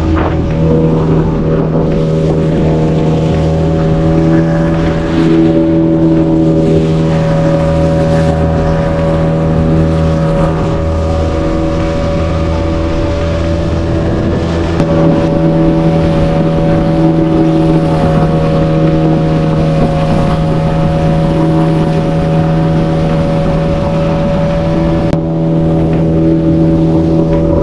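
Fishing boat's engine running steadily under way, with wind and water noise.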